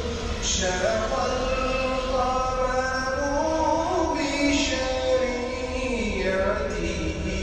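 Background music: a voice chanting a slow melody in long, held notes that glide up and down.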